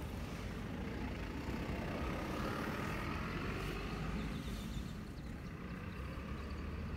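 Steady low rumble of motor traffic, swelling for a couple of seconds in the middle as a vehicle passes.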